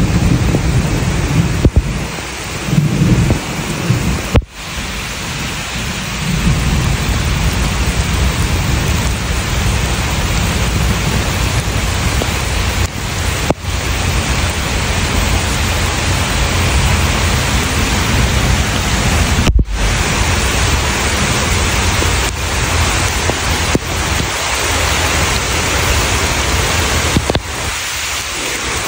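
Heavy rain falling in woodland: a loud, steady hiss, with a low rumble in the first few seconds. The sound cuts out for an instant several times.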